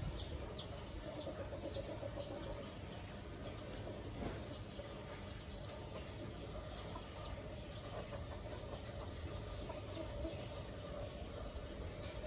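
Chickens peeping and clucking: a steady string of short, high, falling peeps, one or two a second, over soft low clucking and a low rumble.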